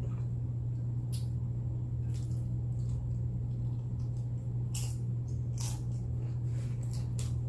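Chewing nachos close to the microphone: about half a dozen short, wet mouth sounds over a steady low hum.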